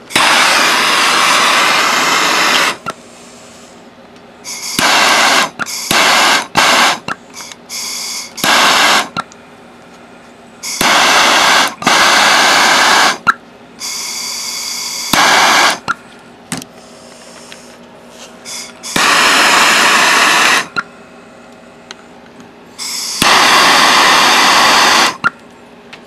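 Handheld gas torch fired in repeated bursts of hissing flame while heating solder onto a flex-drive cable fitting: several bursts a second or two long, with short blips in between, each starting and stopping sharply.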